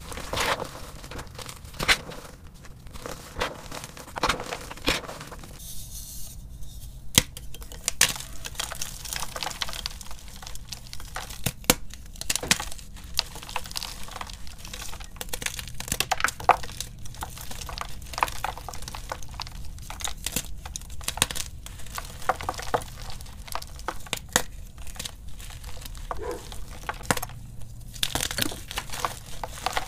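Blocks of gym chalk being crushed and crumbled by hand, breaking apart into chunks and powder. Dense, irregular crunching and crackling, with a brief lull about six seconds in.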